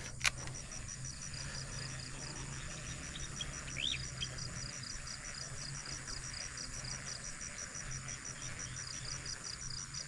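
Insects chirping in a steady, rapid, even pulse, with a single sharp click just after the start and a brief bird chirp about four seconds in.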